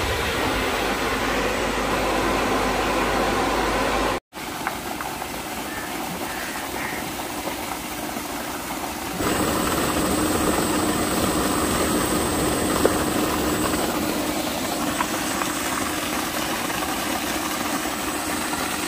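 Electric water-pump motors running steadily. The sound drops out for an instant about four seconds in and changes in tone about nine seconds in.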